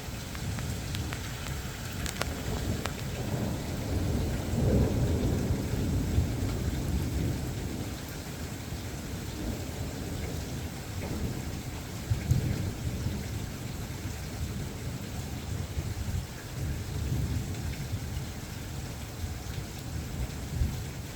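Thunder rumbling over steady rain. The rumble swells about four seconds in and again around twelve seconds.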